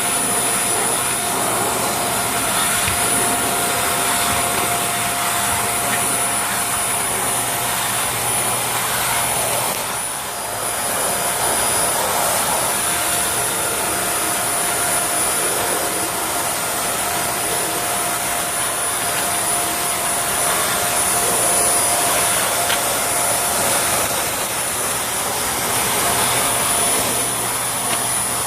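Hoover Air Steerable upright vacuum cleaner running steadily on carpeted stairs: a rush of airflow with a steady high whine from the motor, easing briefly about ten seconds in.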